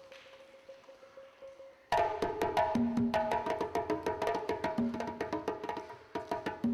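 Wooden xylophone with calabash resonators (Ghanaian gyil or balafon) played fast in a dense, rhythmic pattern of pitched wooden strikes, breaking in loudly about two seconds in after a quiet opening.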